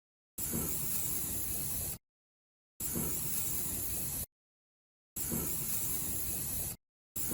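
Spray paint hissing steadily in several separate stretches of about one and a half seconds each, broken by sudden dead-silent gaps, as a first coat goes onto a derusted tractor wheel rim.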